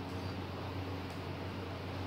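Steady room tone: an even hiss with a constant low hum and no distinct events.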